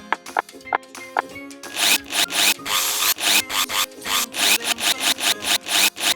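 Toy drill running, a rapid rasping ratchet of about four pulses a second that starts about a second and a half in, over background music.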